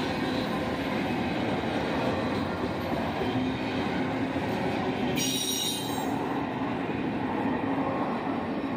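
Intermodal freight train cars rolling past on the rails with a steady rumble of steel wheels. A brief high-pitched wheel squeal comes about five seconds in, and the sound eases a little near the end as the last cars pass.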